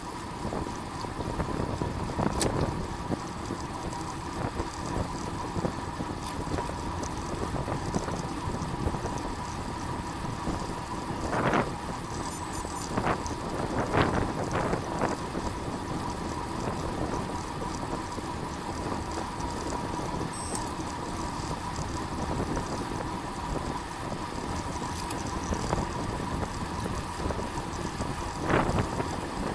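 Wind and road noise of a road bike ridden at speed in a team time trial, with wind on the microphone, a faint steady high tone and a few sharp knocks.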